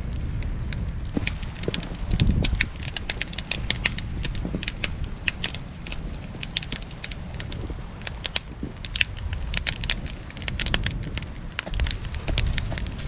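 Irregular sharp crackling and popping, many small clicks coming unevenly, over a steady low rumble.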